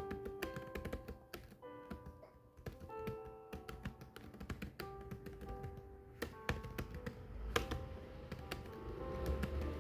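Keys being typed in a quick, uneven run of clicks, over background music of held notes.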